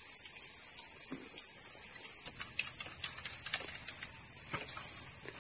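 A steady, high-pitched insect chorus drones without a break and swells slightly about two seconds in. Faint scattered ticks and rustles sit underneath it.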